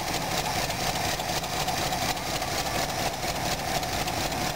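Ford 351 Windsor V8 idling steadily, with the engine fan turning.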